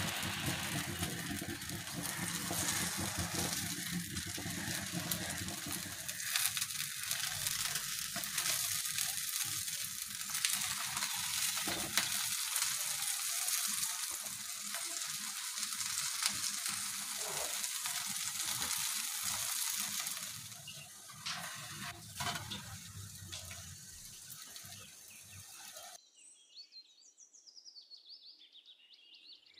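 Paratha frying in hot oil in a non-stick pan: steady sizzling with small crackles, dying down over the last few seconds.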